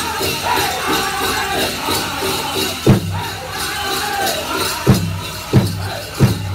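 Powwow drum group singing a chicken dance song over a steady drumbeat, with the dancers' leg bells jingling in time. From about three seconds in, four loud accented drum strikes stand out.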